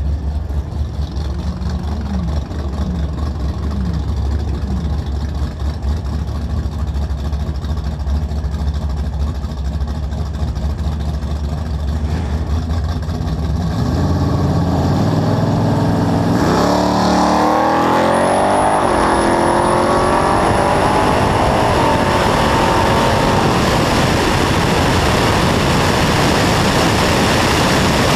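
A drag car's engine idling with a few short throttle blips, then about halfway through launching at full throttle, its note climbing in pitch through the gears on a quarter-mile pass run in 9.42 seconds at 147 mph. A thin high whistle joins for a few seconds at speed, and a dense rush of engine and wind noise fills the last part.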